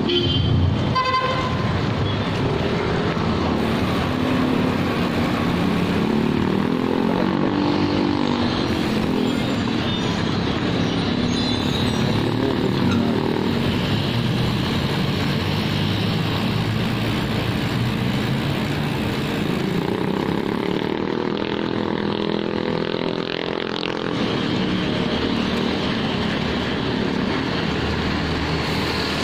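Steady wind and road noise of a moving street ride, with a vehicle engine climbing and falling in pitch twice. A short horn toot comes right at the start.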